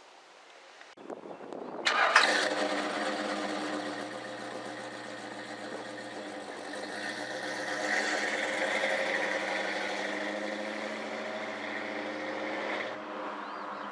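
1964 Ford F100 truck engine cranking and catching about two seconds in, then running steadily, rising in revs around the middle and settling back near the end.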